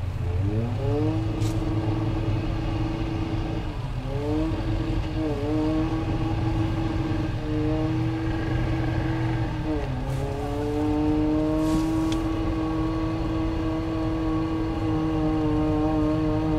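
Toyota pickup's engine revving hard under load, spinning its tires for grip on a snowy rock ledge. The revs drop and sweep back up several times, then hold high and steady for the last several seconds.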